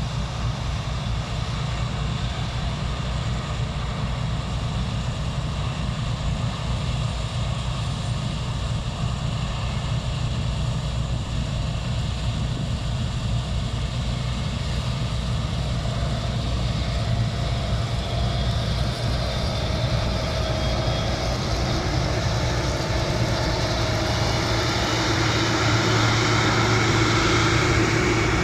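Heavy diesel harvest machinery running steadily with a deep engine hum. Over the last third it grows louder, with a rising whine above the hum.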